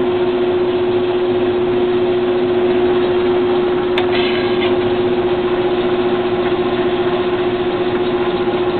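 Clausing Colchester 13x36 geared-head metal lathe running steadily with flood coolant on, a constant whine from the headstock gearing over a steady wash of noise. A single sharp click about four seconds in.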